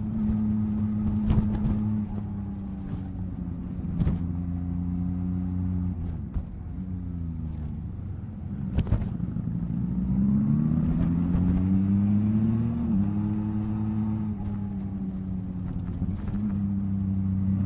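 Yamaha MT-09 SP's inline three-cylinder engine running on the move. It holds a steady note, eases off around six seconds, then climbs in pitch under acceleration from about ten seconds before an upshift drops the revs near thirteen seconds. Short thumps are scattered through it.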